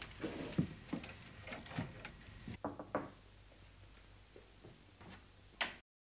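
Light knocks, clicks and a brief creak as a birdcage is handled at a window, with a sharp click near the end, after which the sound cuts off abruptly.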